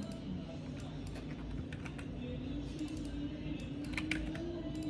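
Typing on a computer keyboard: irregular, scattered keystrokes with a cluster of clicks about four seconds in, over a steady low background hum.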